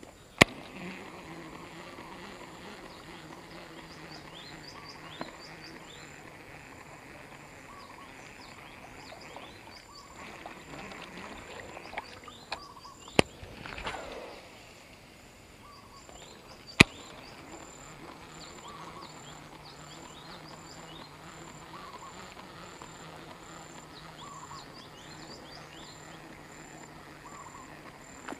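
Insects and birds calling around a tropical canal bank: a steady, fast-pulsing high insect trill under scattered short bird chirps, with a low hum that comes and goes. A few sharp clicks, and a brief swish about halfway through.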